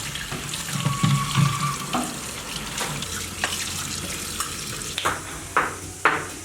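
Water running and splashing, with a few sharper splashes near the end.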